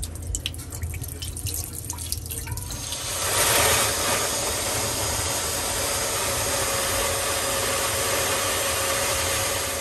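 Backed-up sink water dripping from the disconnected drain pipe into a glass bowl, then from about three seconds in pouring out in a steady stream and splashing into the bowl.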